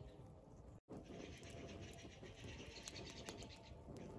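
Wood campfire crackling faintly: scattered soft pops and ticks over a low hiss. A brief dropout comes about a second in.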